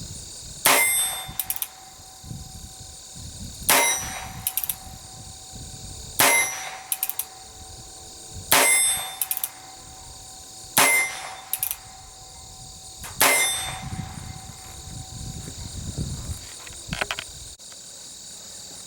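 Colt Buntline Frontier Scout single-action .22 Long Rifle revolver with a 9½-inch barrel, fired six times at a slow, even pace of about one shot every two and a half seconds. Each sharp crack is followed by a short metallic ring.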